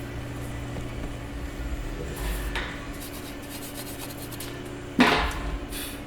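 Workshop handling noises over a steady low hum: a short scrape about two seconds in, then a single sharp metal clank about five seconds in that rings briefly.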